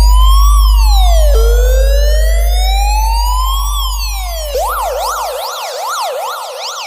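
Electronic police siren sound played loud through a speaker system: a slow wail rising and falling twice, switching about four and a half seconds in to a fast yelp of about three sweeps a second. A deep bass drone sits under the wail and fades out as the yelp starts.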